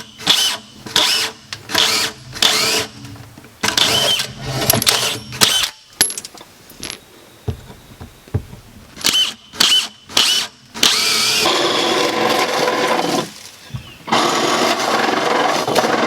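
Power drill run in many short bursts, then in two longer steady runs, boring holes for the water supply pipes.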